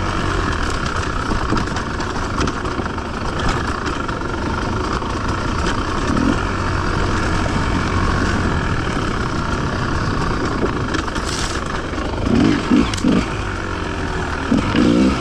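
Enduro motorcycle engine running steadily at fairly even revs, with a few short louder sounds about twelve seconds in.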